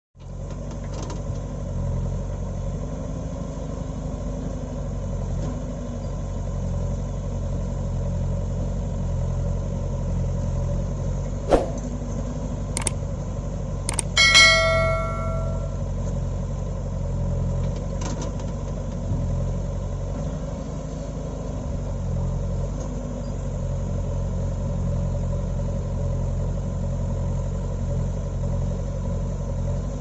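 JCB backhoe loader's diesel engine idling steadily. About midway, a few sharp clicks and then a short ringing bell chime with several tones: an added subscribe-button sound effect.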